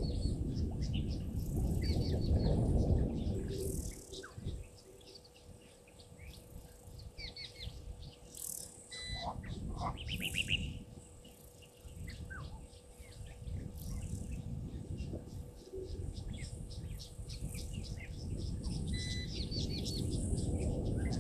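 Wild birds calling: short high trills repeat several times, with a louder call about ten seconds in. Insects tick rapidly underneath, and a low rumble swells in the first few seconds and again near the end.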